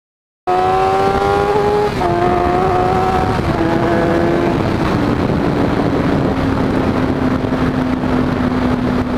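Sport motorcycle engine heard from on board the moving bike, cutting in abruptly about half a second in. Its pitch steps down a few times in the first five seconds as it shifts up, then holds steady at a cruise.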